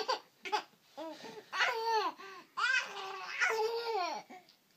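A baby giggling in a few short bursts, then babbling in longer high-pitched calls that rise and fall, laughing at its father's sneezes.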